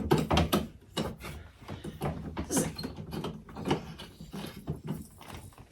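Irregular knocks, clicks and rubbing of things being handled inside a refrigerator.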